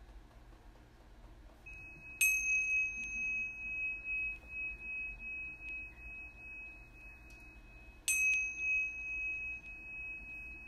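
Small meditation chime struck twice, about two and eight seconds in. Each strike rings on in one steady high tone that slowly fades.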